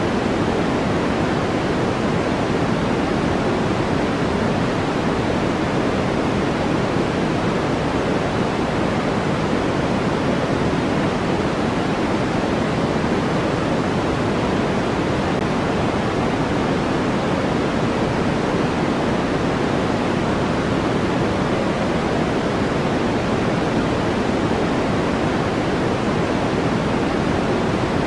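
White-noise track: a steady, unchanging rush with its weight in the low and middle range and softer highs, nearer pink noise than a bright hiss.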